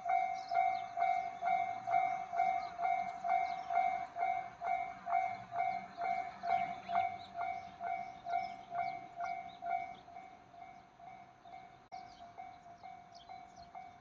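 Japanese railway level-crossing alarm ringing, a repeating clang about twice a second, which warns that a train is approaching. It drops in level after about ten seconds.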